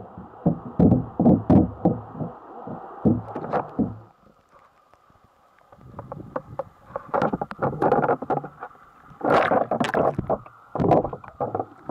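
Muffled water sloshing and irregular knocks picked up by a waterproof camera in its housing, with a near-silent gap about four seconds in.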